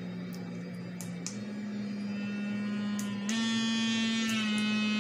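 Paloqueth silicone finger vibrator's motor buzzing, stepping up to a higher speed about a second in and again past the three-second mark, louder after the second step, as it is switched through its intensity settings. A few light clicks are heard over it.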